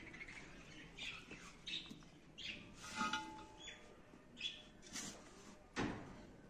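Birds chirping now and then, with a metal spade digging into loose soil and a louder scraping thud from the spade near the end.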